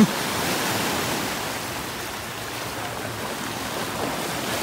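Small waves washing onto a sandy shore: a steady rush of surf in the shallows.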